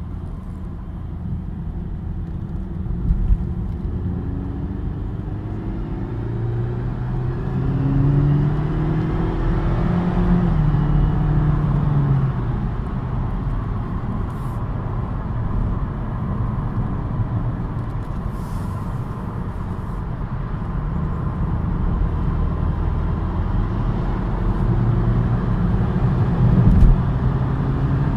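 BMW 116i engine pulling under acceleration, its pitch climbing in several steps as the car goes up through the gears, over a steady low rumble. The owner says an engine noise shows up only when accelerating on a cold engine.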